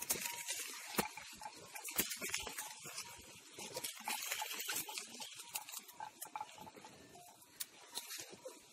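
Ferns and brush rustling, with scattered snaps and cracks of twigs, as someone moves through dense undergrowth. The rustling is loudest in the first half and thins out later.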